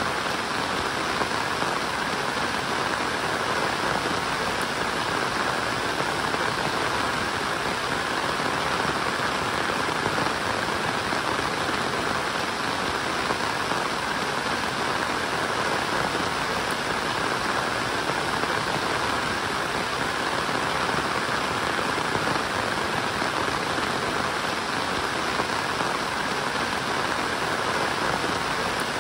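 Steady rain falling, an even hiss of drops that keeps up without a break.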